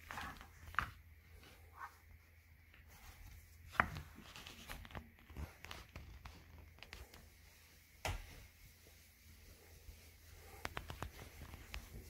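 Quiet room with a steady low hum and scattered light clicks and knocks, with a few sharper knocks about a second in, near four seconds and near eight seconds.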